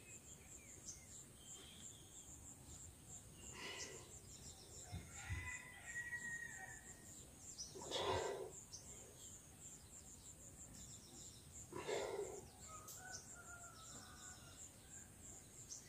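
Short, forceful breaths of effort from a man doing kneeling ab roller rollouts, three of them about four seconds apart, one per repetition. Faint insect chirping runs steadily underneath, with a few faint bird calls.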